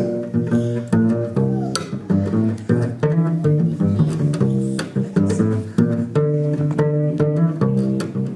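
Double bass played pizzicato: a quick, improvised run of plucked low notes in a jazz style.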